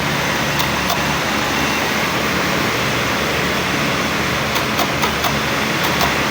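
Electric knife-sharpening machine running steadily with a low hum and a hiss, with a few light ticks about half a second in, near one second, and several more between four and six seconds in.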